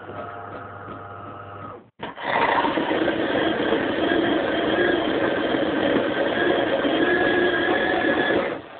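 De'Longhi Magnifica bean-to-cup coffee machine running its one-touch cappuccino cycle. A steady motor hum stops about two seconds in. After a short break, a much louder steady mechanical whirring runs until near the end.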